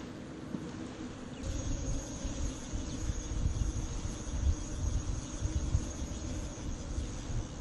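Wind buffeting the microphone in gusts, starting about a second and a half in, with a steady thin high-pitched tone over it.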